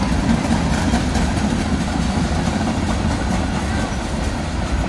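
BNSF manifest freight train's autorack cars rolling past on the rails: a steady, loud rumble of wheels on track.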